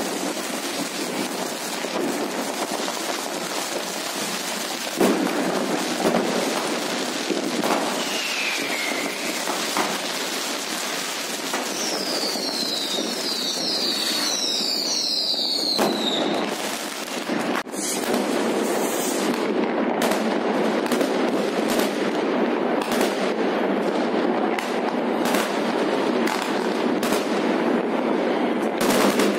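Many New Year's Eve consumer fireworks going off at once: a dense, steady crackle and popping with sharp bangs throughout. A cluster of falling whistles comes about halfway through, and a closely spaced run of bangs fills the last third.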